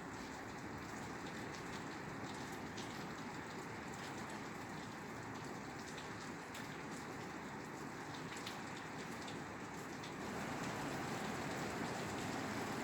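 Steady rain falling on a roof, with many small drop ticks over a continuous patter. About ten seconds in it gets heavier and a little louder.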